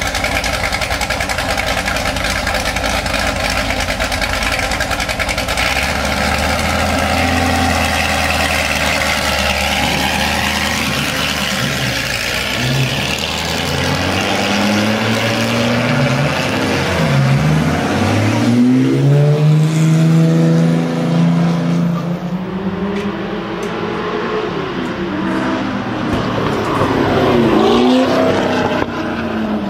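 Ford GT40 Mk II's V8 race engine, first idling steadily with a deep rumble, then revving and accelerating hard through the gears in repeated rising pitch sweeps. Near the end the car goes past, its pitch dipping and then climbing again.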